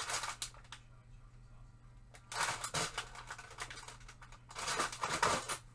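Rummaging through a stash of craft supplies, with three bursts of shuffling and clattering as things are moved and knocked about.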